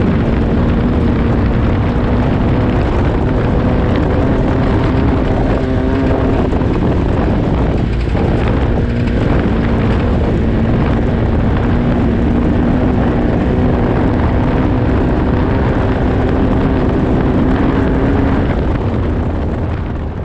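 Off-road race car's engine running at steady revs under loud rumbling road and wind noise, fading out near the end.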